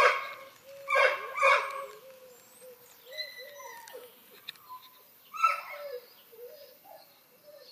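Puppy whining in a high, wavering tone, broken by short, sharper yelps at the start, about a second in and again past five seconds.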